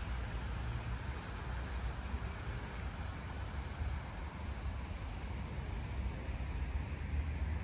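Steady road-traffic noise from cars on a nearby street: a continuous hiss of tyres and engines with a low rumble underneath, without distinct passes or other events.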